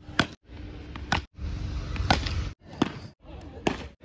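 Cricket bat hitting a ball again and again: about five sharp cracks, roughly one a second, separated by brief silent gaps.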